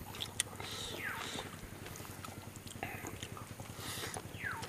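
Close-up eating sounds: chewing and moist mouth clicks as chicken and rice are eaten by hand. A sharp click stands out about half a second in. A falling whistle repeats in the background every couple of seconds.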